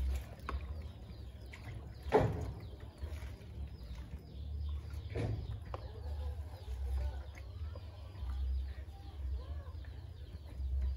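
Water from a plastic dipper splashing down twice, about two and five seconds in, as it is poured over the body from a bucket. Chickens cluck and peep in the background.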